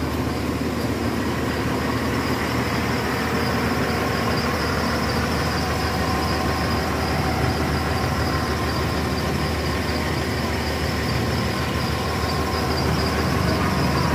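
Crawler excavator's diesel engine running steadily, a constant mechanical drone with a faint high whine over it.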